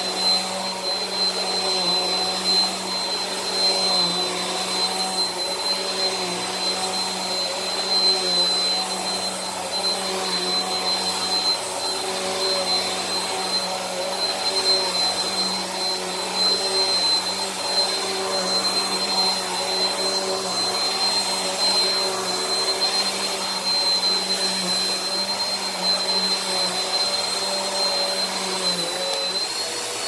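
Bissell PowerForce Helix upright vacuum running on carpet: a steady high motor whine over a lower hum that wavers slightly as the machine is pushed back and forth.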